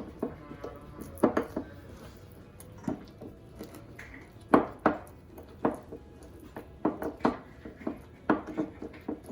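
Kitchen utensils and dishes being handled: a dozen or so irregular clicks and knocks of cutlery and crockery on a worktop.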